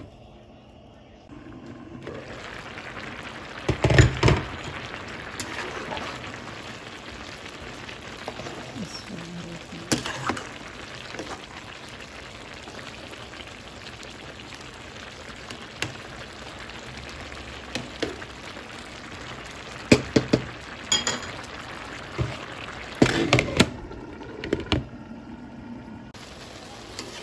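A pot of rice and vegetables simmering under a glass lid: a steady bubbling hiss. Clanks of the lid and a stirring spoon against the pot break through, a few seconds in and in a cluster past the middle.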